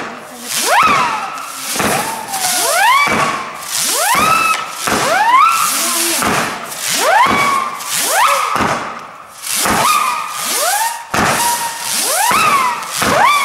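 Weco Ghost Cry firework battery firing whistling shots in quick succession, about one or two a second and often overlapping, each whistle rising steeply in pitch and then levelling off or falling slightly, over a rushing hiss.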